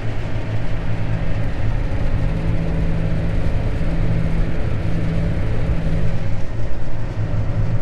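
Steady low drone of a vehicle engine running, heard from inside the cab while towing a spreader.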